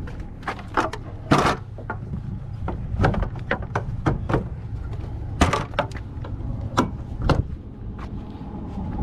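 Hand-tool work on a truck windshield: an irregular run of sharp clicks and knocks, about fifteen over several seconds, over a low steady rumble.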